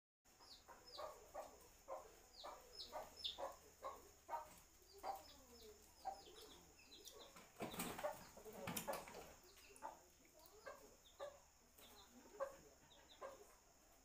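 Faint clucking of chickens, short calls repeated every fraction of a second, over a steady high-pitched hum, with a louder noisy patch about eight seconds in.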